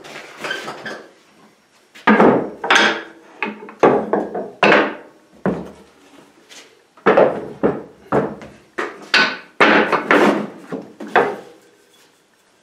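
Hardwood bench parts knocked together during assembly: the legs' round tenons seated in drilled mortises and the top tapped down with a mallet, about a dozen sharp wooden knocks from about two seconds in.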